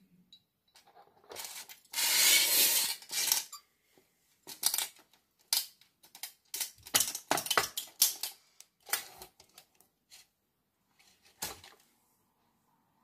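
Handling noise from a twin-tube compact fluorescent lamp being turned in the hand: a loud rubbing, then a run of sharp clicks and clatters of hard plastic and glass, with one last click near the end.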